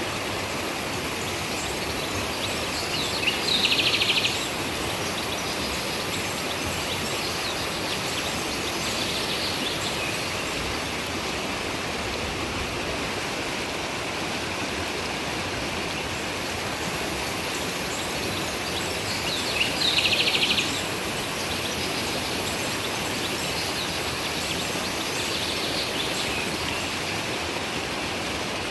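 Stream water running steadily, with a bird giving a short, loud chirping trill twice, about three seconds in and again near twenty seconds, and fainter calls in between.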